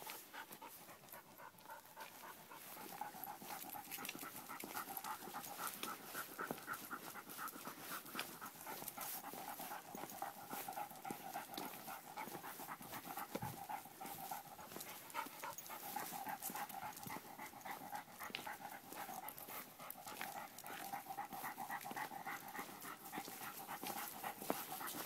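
A dog panting in quick, steady breaths.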